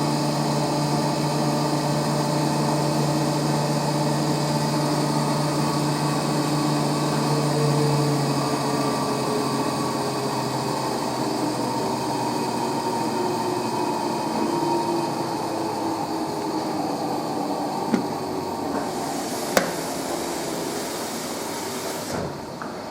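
Electrolux 365H LE washing machine's motor and drum running at speed with a steady whirring whine over a hiss. A low hum fades out early on, the tones slowly drop in pitch as the spin winds down, and there are two sharp clicks near the end.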